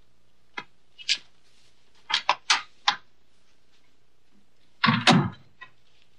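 Large sheets of paper artwork rustling and flapping as they are handled at a desk: a few short, crisp rustles in the first three seconds, then a louder, fuller rustle about five seconds in.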